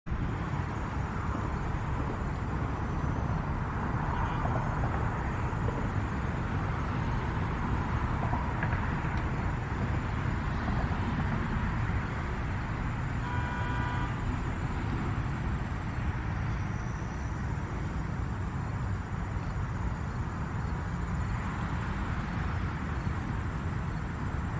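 Steady outdoor rumble of distant road traffic. A short pitched sound, like a horn or call, cuts through briefly about halfway.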